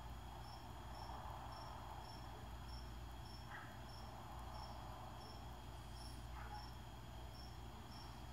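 A cricket chirping faintly and evenly, about two short chirps a second, over a low steady hum.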